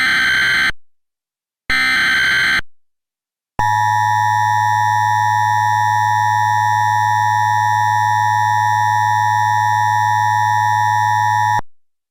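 Emergency Alert System header: two bursts of digital data tones, each about a second long with a short silence between. Then, about three and a half seconds in, the steady two-tone EAS attention signal sounds for about eight seconds and cuts off suddenly.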